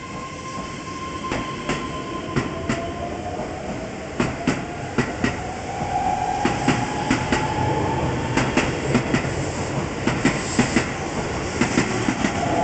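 Keihan 13000-series electric train pulling out and accelerating past the platform. A rising electric motor whine sounds under the wheels clacking over rail joints, the clacks coming in pairs and faster as it gathers speed.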